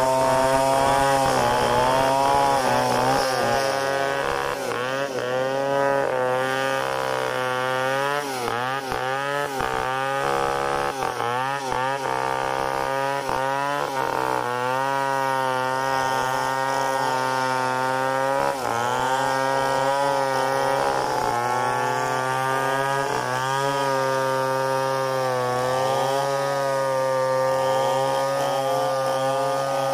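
Large two-stroke chainsaw running under load, ripping a log lengthwise into a plank. The engine note rises and dips again and again as the bar works through the wood.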